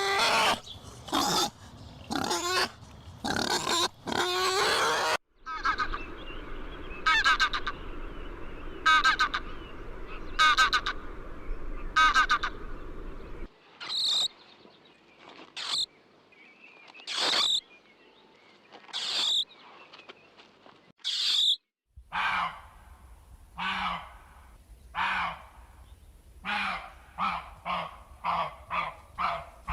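A run of different animal calls in separate recordings that cut abruptly into one another: first a quick series of short calls, then repeated calls about once every second and a half, then short high-pitched calls, and near the end faster calls.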